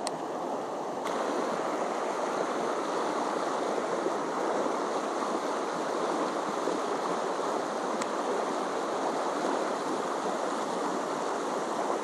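Small mountain stream rushing, a steady even wash of water noise.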